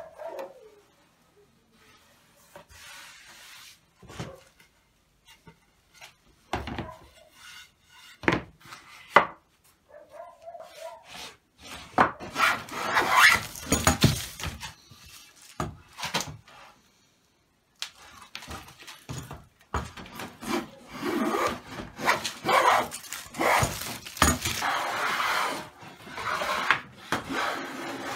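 Wood being handled on a workbench, with scattered knocks, then a metal hand plane shaving the edge of a wooden board in repeated rasping strokes, starting about twelve seconds in.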